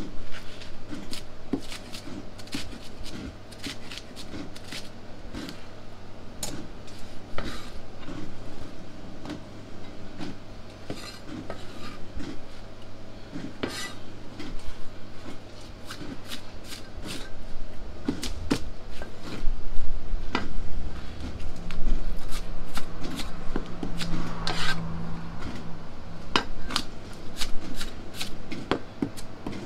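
Chinese cleaver cutting cabbage on a thick round chopping block: irregular knocks of the blade striking the block, with some scraping as the cut leaves are pushed across it. A steady low hum runs underneath, and the chopping gets busier and louder in the second half.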